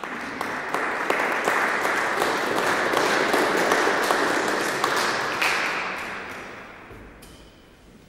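Audience applauding, swelling in the first second and then dying away after about five and a half seconds.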